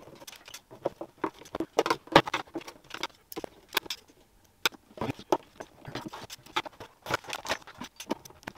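Irregular small metal clicks, taps and scrapes as an ECU's metal casing is closed up by hand: a screwdriver and screws working the case and the cover being set down on a stainless-steel table.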